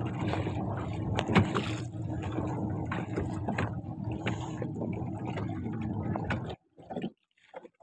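A small motorboat's engine running steadily with wind and water noise and scattered knocks, then cutting off abruptly about six and a half seconds in as the boat comes alongside a landing, followed by a few brief short sounds.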